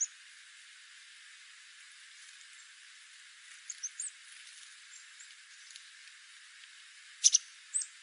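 Small songbirds giving short, high, sharp chip calls: one at the start, a few about four seconds in, and the loudest pair about seven seconds in followed by one more, over a steady faint hiss.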